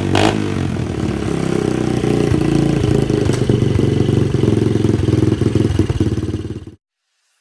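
Pit bike's four-stroke engine running at idle on fresh oil, with a fast uneven beat. The sound cuts off suddenly near the end.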